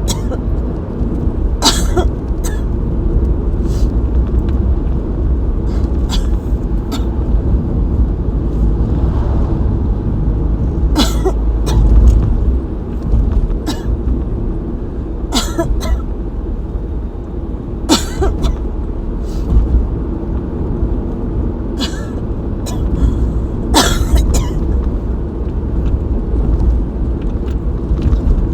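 Person coughing repeatedly in an asthma attack: about fifteen short coughs, spaced a second to a few seconds apart and some in quick pairs, over a steady low rumble.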